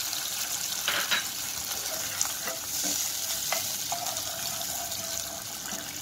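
Soy sauce and vinegar sizzling in hot oil with chopped garlic and green chillies in a saucepan, as a spoon stirs it. A steady hiss, with a few light knocks of the spoon against the pot.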